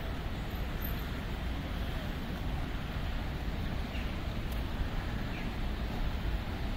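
City street ambience: a steady low rumble of road traffic mixed with wind on the microphone, with a couple of faint short bird chirps.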